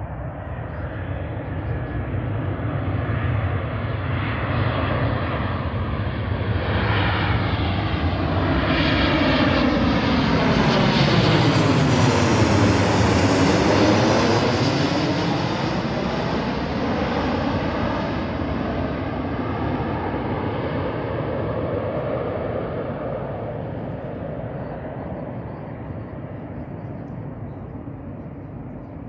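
Boeing 737 jet airliner passing low overhead on final approach with its landing gear down. The jet engine noise builds steadily, peaks about halfway through with a sweeping, phasing sound as the aircraft passes directly overhead, then fades away.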